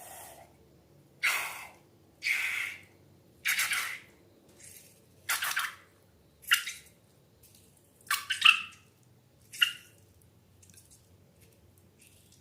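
Slime being squished and pulled, making about eight or nine short, wet, sticky squelches at irregular intervals.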